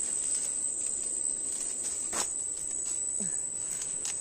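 A steady, high-pitched insect chorus drones without a break. Two brief clicks of twigs, one about two seconds in and one near the end, come from the branches being pushed through.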